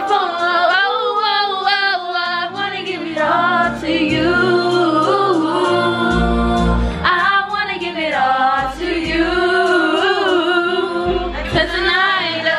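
A song playing, with several women singing along to the melody over it. Deep bass notes come in about halfway through.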